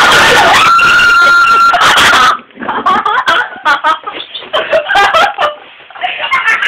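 A loud, high, held scream cuts off suddenly a little over two seconds in. Choppy shouting voices follow, with short quiet gaps.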